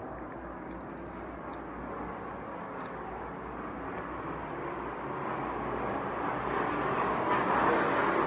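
Aircraft flying over, its engine noise a steady rumble that grows steadily louder.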